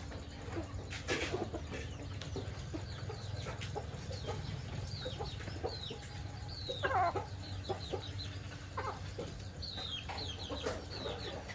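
Chickens clucking while chicks give high, quickly falling peeps, with one louder hen call about seven seconds in, over a steady low hum.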